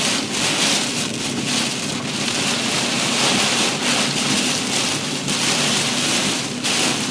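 Heavy rain pelting a moving car's windshield and roof, a dense steady hiss with a low hum underneath.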